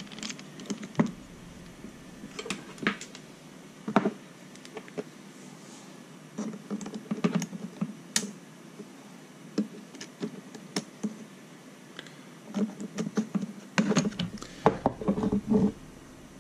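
Irregular small clicks and taps of a screwdriver and tweezers working the plastic parts of a Turnigy TGY-i6 transmitter's stick gimbal while a retainer is taken off, with a busier run of clicking near the end.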